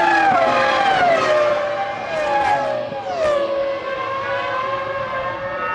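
Formula One V10 engines from the 2000 season. Their revs drop in several quick steps over the first three seconds or so, as on downshifts under braking, then hold at a steadier, lower pitch.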